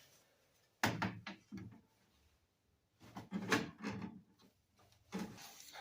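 Clicks and knocks from handling and fitting a car's interior door panel. There is a sharp click about a second in and a few lighter knocks after it, then another cluster of clicks and knocks partway through.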